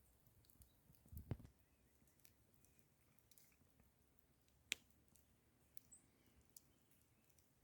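Near silence with faint scattered clicks. There is a soft low thump a little over a second in and one sharp click just before five seconds.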